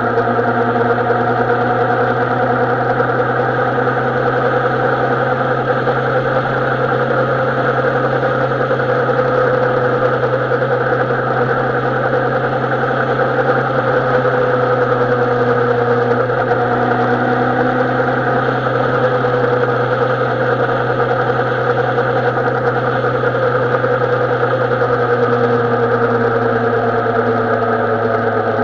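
Carburetted inline-four engine of a 2007 Suzuki Bandit 650N motorcycle running steadily, its pitch drifting only slightly.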